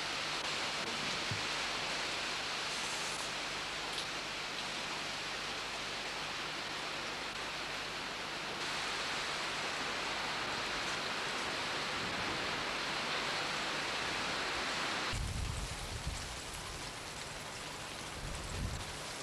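Steady hiss of falling rain. About fifteen seconds in it changes to a softer, duller rain sound with a few low rumbles.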